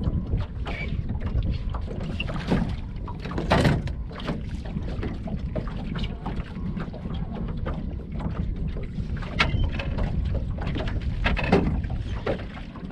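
Wind buffeting the microphone as a low, steady rumble, with irregular sharp clicks and knocks over it.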